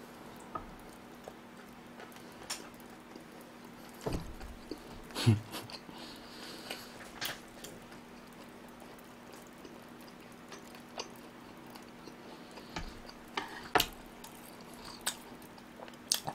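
A person chewing a mouthful of sushi with quiet mouth sounds, small clicks and a couple of soft thumps about four to five seconds in, over a faint steady hum.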